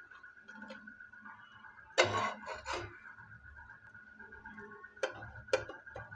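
Metal spatula clattering and scraping against a flat frying pan and a plate as toasted pav buns are lifted off. There is a loud clatter about two seconds in and two sharp clicks near the end, over a faint steady high whine.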